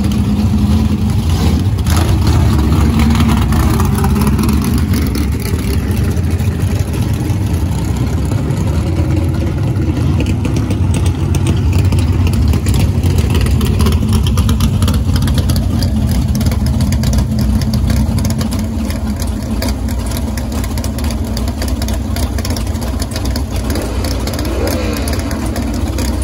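Vintage drag-race gasser engines, a 1950s Corvette gasser and a Willys gasser, idling at the starting line with a loud, steady rumble. About two-thirds of the way through the deepest part of the rumble drops a little.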